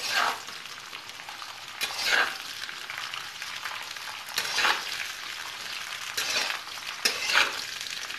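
Sliced spiny gourd sizzling in hot oil with mustard seeds in a metal kadhai, stirred with a spatula: a steady sizzle with about five louder scraping swells as the pieces are turned.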